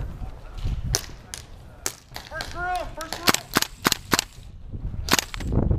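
Airsoft guns firing single shots: about eight sharp cracks at irregular intervals, several in quick succession a little after three seconds in. A brief voice calls out in the middle.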